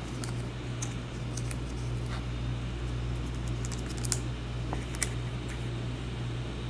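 Light clicks and scrapes of trading cards being handled and slid through a pack, a few scattered ticks over a steady low hum.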